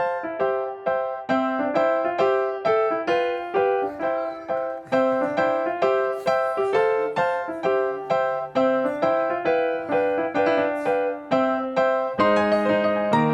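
Background music: a gentle piano tune with evenly spaced notes, thickening into chords near the end.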